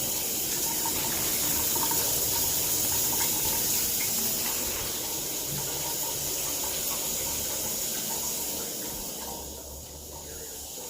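Water running steadily from a tap in a small bathroom, easing off near the end.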